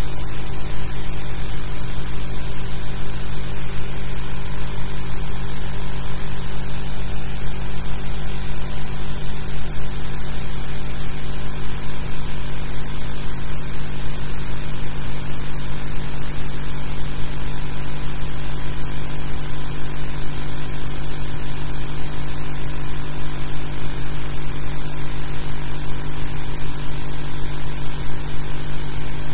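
Steady hiss with a low hum, unchanging and with no distinct events: the background noise of an old film soundtrack.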